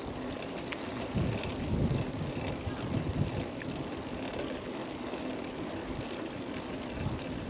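Mountain bike being ridden along a trail: steady rolling noise, with low gusts of wind on the microphone a few times in the first half.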